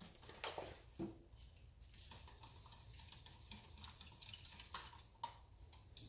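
Near silence: faint room tone with a few soft clicks.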